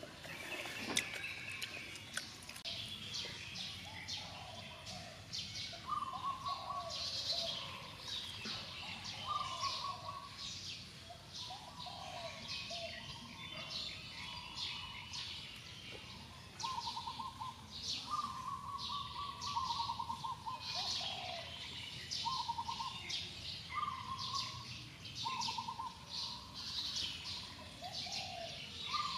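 Several birds singing at once: short trilled notes repeated again and again, lower whistled notes that rise and fall, and a steady layer of high chirping. A couple of faint knocks sound about a second in and again halfway through.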